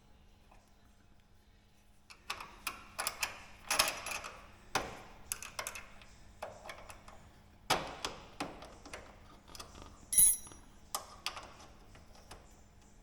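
Irregular metal clicks and knocks from hand tools working a bolt out of a light aircraft's undercarriage leg. They start after about two seconds and include one brief ringing metallic ping about ten seconds in.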